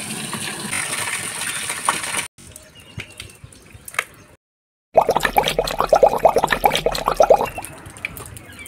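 Water from a garden hose pouring steadily into the empty tub of a top-loading washing machine, cut off sharply after about two seconds. A few clicks follow, then a loud run of quick rhythmic handling noise, several strokes a second, for about two and a half seconds.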